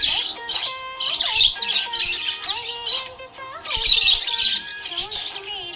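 Budgerigars chirping and warbling in quick, busy bursts of high chirps.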